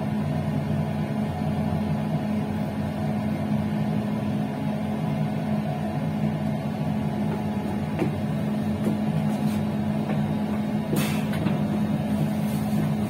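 PKP Intercity passenger train running along the line: a steady hum and rumble, with a few sharp clicks, the loudest about three-quarters of the way through.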